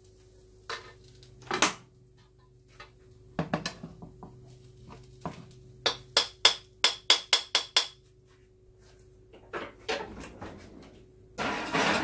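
A cooking utensil knocking against a frying pan, likely to knock leftover rice loose: a few scattered knocks, then a quick run of about eight sharp ringing taps, roughly four a second. A brief rush of clattering noise comes near the end.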